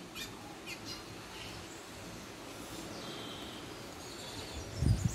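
Caged bullfinch (chestnut-bellied seed finch) giving short, scattered chirps and notes, faint over steady background noise, with a few low thumps near the end.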